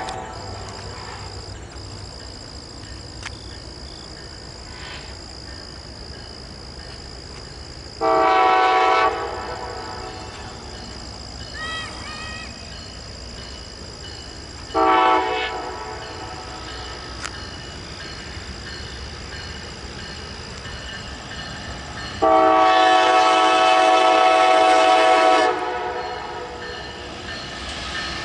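Amtrak Illini locomotive's air horn, several notes sounded together, blowing three blasts as the train approaches: one of about a second, a shorter one, then a long one of about three seconds. Together with the blast just before, they make the long-long-short-long grade-crossing signal, heard over the train's steady running noise.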